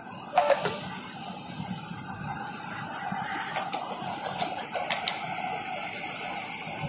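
Steady road and engine noise inside a moving car's cabin, a low hum under a hiss, with a couple of sharp knocks about half a second in.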